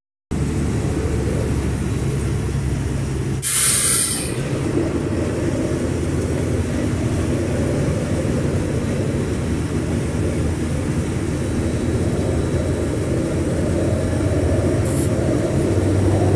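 Vehicle engine and road noise heard from inside the cab while driving: a steady low drone and rumble. A short loud hiss comes about three and a half seconds in, and a brief fainter one near the end.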